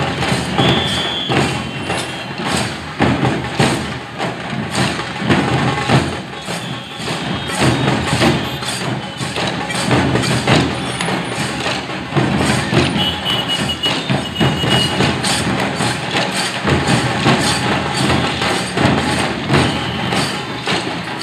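Procession percussion: dense, continuous rhythmic drumming with sharp clacking strikes. A brief high held tone sounds about a second in and again for about two seconds later on.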